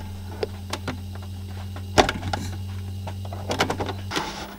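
Clicks and knocks of a lead being plugged into a small plastic portable TV and the set being handled and turned round, with one sharp knock about two seconds in. Underneath is a steady low hum that cuts off about four seconds in.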